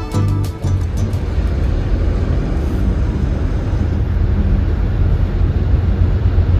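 Steady low road and engine rumble inside a moving car's cabin, with a few sharp clicks in the first second.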